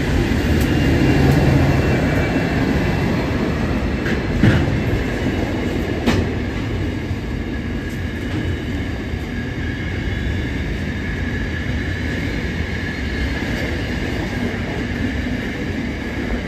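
Pacific National NR-class diesel-electric locomotive running past at close range, followed by loaded intermodal container wagons rolling by in a steady low rumble, with a couple of sharp knocks about four and six seconds in.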